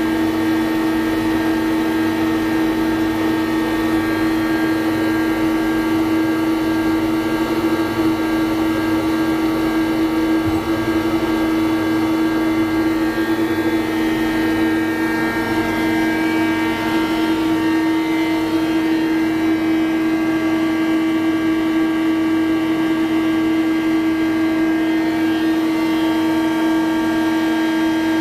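Spinner TC-65 CNC lathe running, a steady mechanical whine made of several constant tones, with a slight shift in the higher tones partway through.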